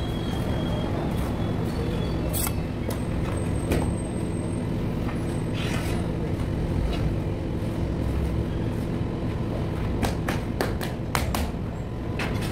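Scattered clicks and scrapes of a steel trowel in mortar and a large ceramic floor tile being handled, with a quick run of sharp taps near the end as the tile is set down. Under it a motor runs steadily with a low rumble.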